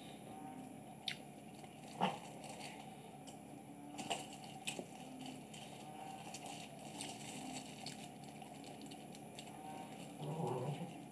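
Cats eating from a plastic tray: faint chewing and smacking with scattered small clicks, the sharpest about two seconds in. A short low sound comes near the end.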